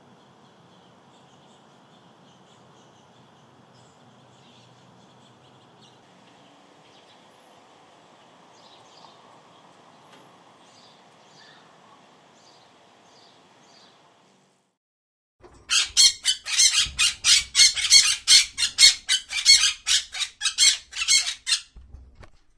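Faint background with a few soft chirps, then, after a short gap, a bird calling loudly in a fast run of high notes, about four a second, for some six seconds.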